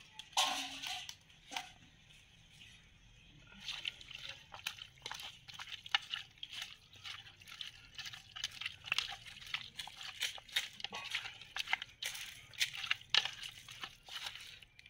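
Hands rubbing and squeezing raw duck pieces in a steel bowl of water to wash the meat: wet squelching, dripping and sloshing in quick irregular bursts, dense from about four seconds in, after a brief handling noise in the first two seconds.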